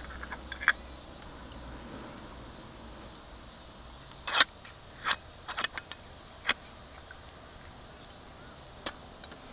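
Metal stovetop moka pot being screwed together by hand: the threads grind and click in short bursts, the loudest about four and a half seconds in, with a few more clicks after it and a single clack near the end.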